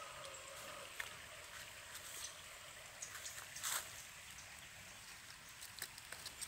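Faint rustling of leaves and dry leaf litter with a few light clicks, the strongest rustle a little past halfway, over a quiet hiss.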